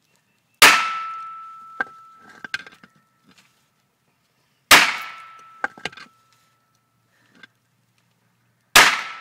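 A heavy hammer striking spent shotgun primers on a concrete block: three hard blows about four seconds apart, each ringing briefly and followed by a few smaller knocks.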